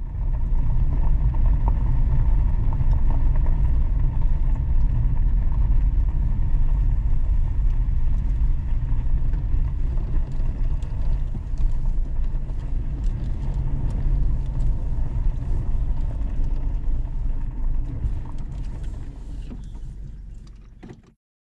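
Vehicle driving along a dirt road, heard from inside the cabin: a steady low rumble of engine and tyres. It fades out near the end.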